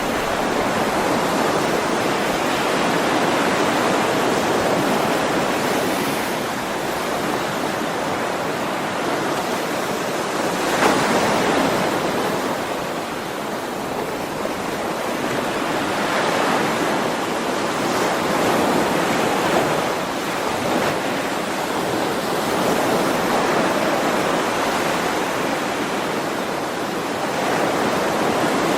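Ocean waves breaking and washing on a shore, a continuous surf sound that swells and eases every few seconds, with one sharper wave crash about a third of the way in.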